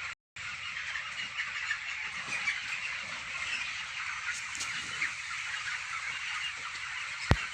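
A large flock of broiler chickens in a poultry shed peeping and calling all at once, a steady dense chatter of small calls. It breaks off for a moment just after the start, and a single sharp click comes near the end.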